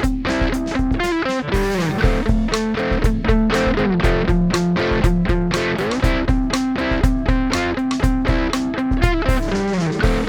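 Electric guitar through a Xotic EP Booster pedal into a Vox MV50 AC amp, playing a steady rhythmic chord pattern of repeated picked strokes, with a few chord changes that slide in pitch.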